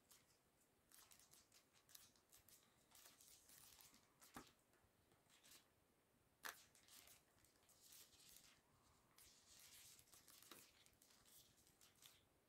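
Faint rustling and crinkling as hands handle a new smartphone, with a light click about four seconds in and a sharper one about two seconds later.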